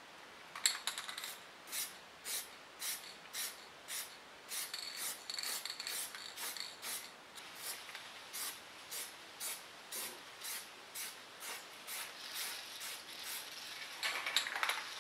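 Aerosol spray paint can sprayed in short, even bursts, about two hisses a second, coating the steel light-mounting plates.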